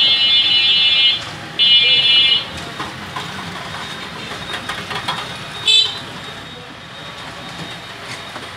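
A vehicle horn honking: a long blast that stops about a second in, a shorter one soon after, and a brief toot near six seconds in. Faint knife strokes on meat come in between.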